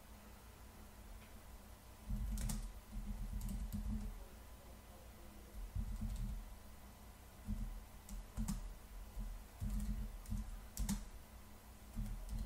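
Typing on a computer keyboard, a terminal command keyed in short irregular runs of keystrokes that begin about two seconds in, with pauses between them.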